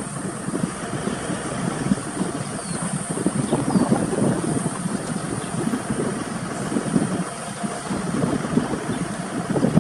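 Car engine idling with an uneven low rumble.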